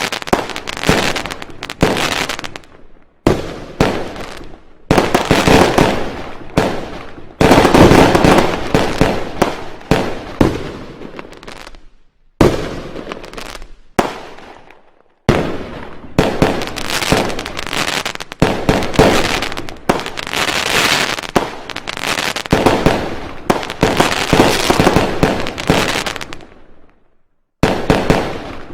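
Fireworks going off in quick runs: many sharp bangs and pops with crackling tails, each run cutting off suddenly before the next begins.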